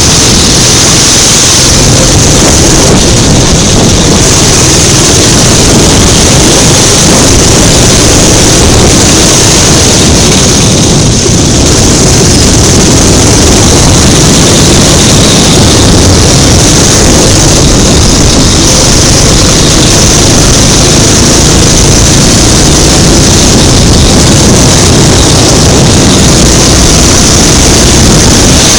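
Go-kart engine running hard at racing speed, picked up by a camera mounted on the kart itself, very loud and steady with one brief easing in the middle.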